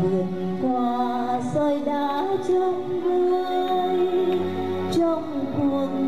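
Music: a woman singing a slow song with long held notes.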